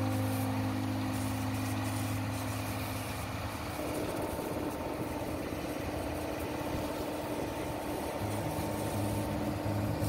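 An engine running steadily with a low hum; its tone shifts about four seconds in.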